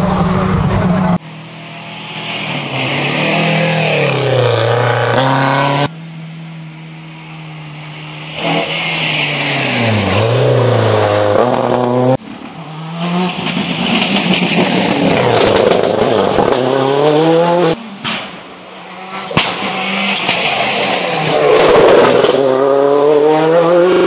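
Rally car engines revving hard as cars pass on a stage, in several short passes cut together. The engine pitch climbs, drops back at each gear change or lift-off, then climbs again.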